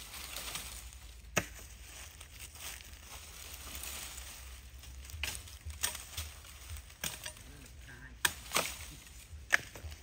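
Dry wood being chopped and handled with a knife: about seven sharp wooden knocks and snaps at uneven intervals, over a faint crackle of leaf litter and twigs.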